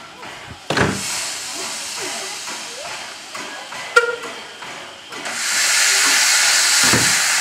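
Steam saddle-tank locomotive with its cylinder drain cocks open: a loud, steady hiss of steam starts about five seconds in as it moves off. A thump comes just under a second in and a sharp click about four seconds in.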